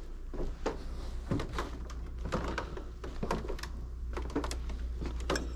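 Footsteps on a hardwood floor, a sharp knock about twice a second, over a steady low hum.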